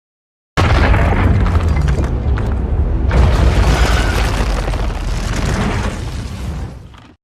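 Monster-movie sound effect: a heavy rumbling boom that starts abruptly about half a second in, surges again around three seconds in, then slowly fades out.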